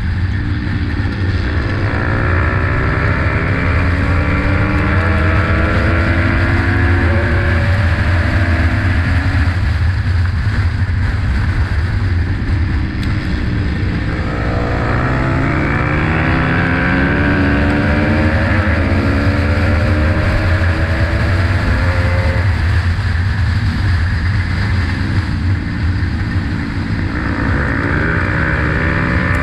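Dirt bike engine racing on a dirt track, heard from a camera mounted on the bike: a steady low drone with the pitch climbing about three times as it accelerates through the gears. A rush of noise comes and goes over it.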